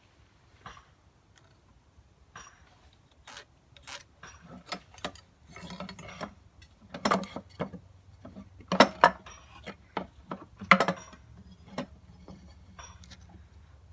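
Irregular clicks and knocks of a wooden blank and a marking square being handled, turned over and set down on a workbench, with a few louder knocks in the middle.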